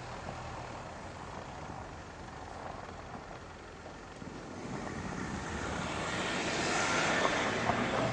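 A 4x4's engine pulling under load as it drives through snow, with a rushing hiss of tyres and snow. The noise builds over the second half to a peak about seven seconds in, then starts to ease.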